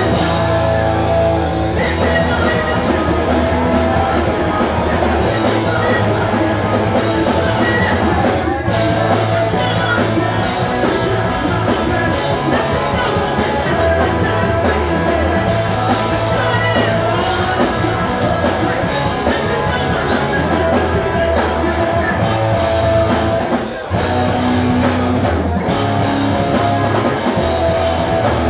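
Pop-punk band playing live: distorted electric guitars, bass and drums with a sung vocal. The music drops out for a split second near the end before coming straight back in.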